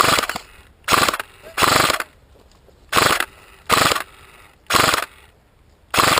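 Airsoft gun firing a string of short rapid-fire bursts, seven of them, each lasting a fraction of a second and coming about a second apart.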